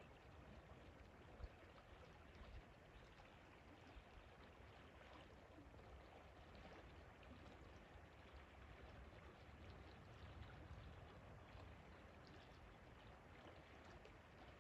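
A river flowing: a faint, steady rush of water.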